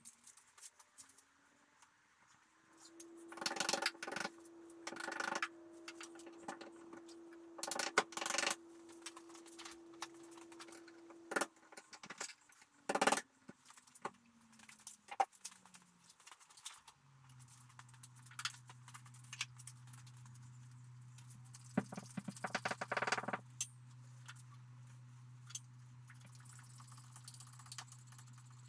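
Hand tools and metal parts clinking and clanking in scattered bunches while working under a truck to remove its transfer case. A humming tone rises, holds for about nine seconds and falls away, and a lower steady hum starts about halfway through.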